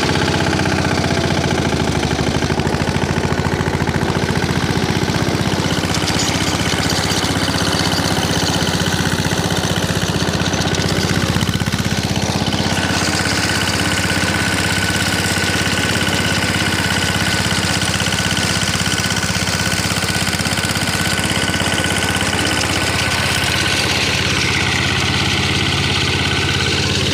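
Apollo compact tractor's engine running steadily under load while it drives a rear rotary tiller through the soil. A steady high whine joins about halfway through and holds.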